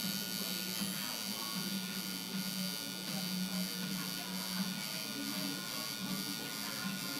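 Coil tattoo machine buzzing steadily as the needle works into skin, its buzz swelling and dipping in strength.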